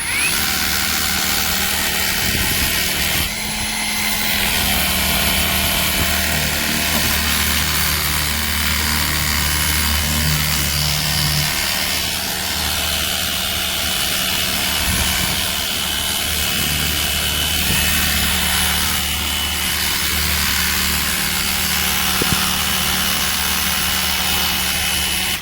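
Cordless handheld pressure washer on a 20-volt Dewalt battery spraying on a more powerful setting. Its electric pump gives a steady hum under a continuous hiss of water spray. The sound starts and cuts off abruptly.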